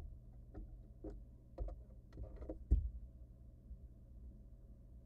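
A barn owl moving about a wooden nest box: about six short scrapes and knocks over the first three seconds, the last the loudest, over a steady low hum.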